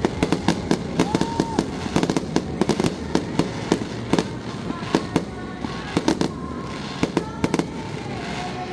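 Aerial fireworks bursting in a rapid, irregular barrage of sharp bangs and cracks, several a second, over a steady low rumble. The bangs thin out near the end.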